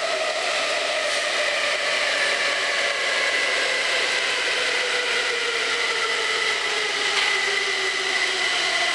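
Kaohsiung MRT train running on elevated track, heard inside the car: a steady rumble and hiss with a motor whine whose pitch falls slowly as the train slows toward the next station.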